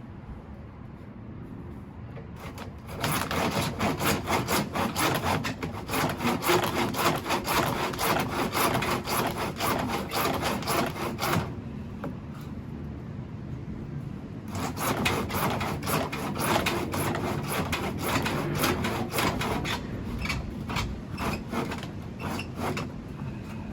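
Rapid back-and-forth scraping or rasping strokes of a hand tool on a hard surface, in two bouts of about eight seconds each with a short pause between.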